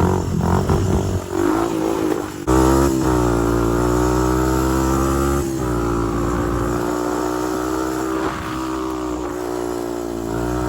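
Honda TRX250X ATV's single-cylinder four-stroke engine running while being ridden. About two and a half seconds in the throttle opens and the engine note jumps up and climbs, dips briefly a few seconds later, then holds a steady note.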